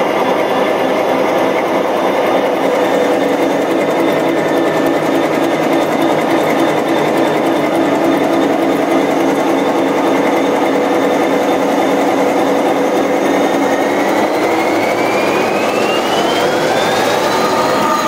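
Large locomotive diesel engine of over 3000 hp running hard with its valve gear exposed, a loud steady mechanical drone. Over the last four seconds a whine rises in pitch.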